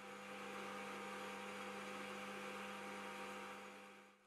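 Warco GH1330 gear-head metal lathe running with its spindle turning brass bar stock: a steady hum with a faint hiss above it. It fades in over the first second and fades out near the end.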